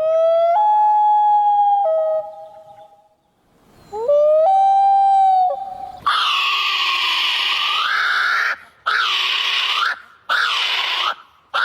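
An animal howling twice, each a long call that rises and then holds one steady pitch. About six seconds in, a run of harsh, rasping calls follows, coming in four abrupt blocks.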